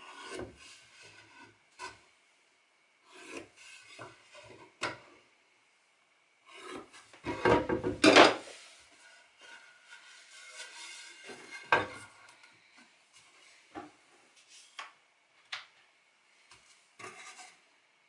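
Wood being handled and slid across a mitre saw's table and fence: irregular rubbing, scraping and knocks, with a louder, longer scrape just before the middle and a sharp knock a little after.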